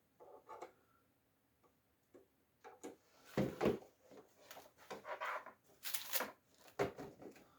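Hard plastic parts of a bird feeder being handled and fitted together: a few faint knocks, then from about halfway a string of short clicks and scrapes as the perch is pushed and slid into its holes.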